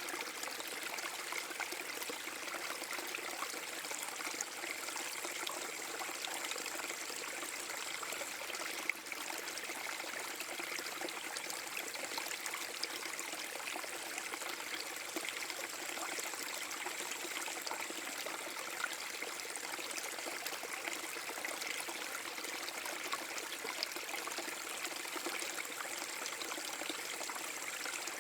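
Small forest-brook waterfall: water falling and splashing steadily over rocks, a continuous rushing and trickling with many small droplet splashes.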